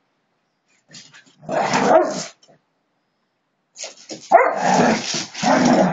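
A husky and a black-and-tan dog barking at each other in a play fight: a short burst about a second and a half in, then a longer one starting just after four seconds in.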